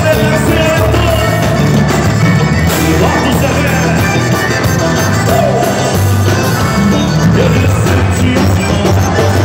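Live band music with a male singer, accordion, electric guitars and drums, played loud with a heavy bass.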